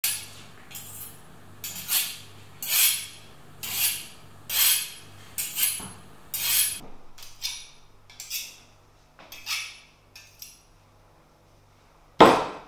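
Kitchen knife drawn along a honing steel in short scraping strokes, roughly one a second, growing fainter after about seven seconds. Near the end comes a loud thud as the knife is stabbed down onto the chicken breast on the cutting board.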